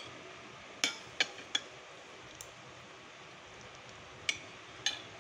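Fork and spoon clinking against a plate while eating: three quick clinks about a second in, a faint one, then two more near the end.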